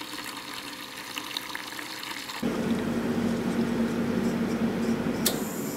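Water draining from a laser-tube water chiller, trickling at first. About two and a half seconds in, the chiller's built-in pump starts with a steady hum and the water gushes out faster. A click comes near the end, and the pump stops.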